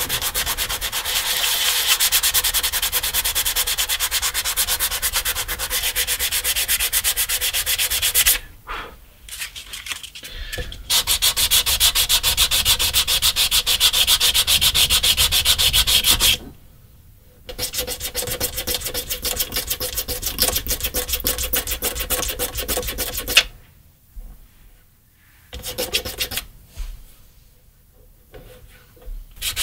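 120-grit sandpaper on a sanding block rubbed by hand over the back of a wooden guitar headstock, sanding through the black finish in fast back-and-forth strokes. The sanding comes in several bouts with short pauses between them, and there is one sharp tap about two-thirds of the way in.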